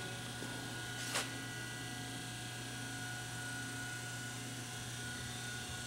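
Steady electrical mains hum with a few constant tones, and one brief hiss about a second in.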